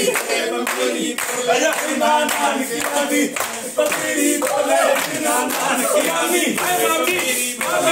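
A group of people singing together and clapping along to a steady beat.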